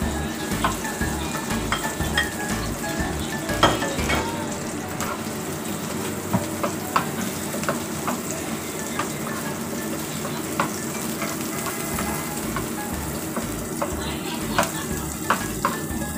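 Chopped onion and garlic sizzling in hot oil in a wok, stirred with a wooden spatula that knocks and scrapes against the pan with frequent short clicks.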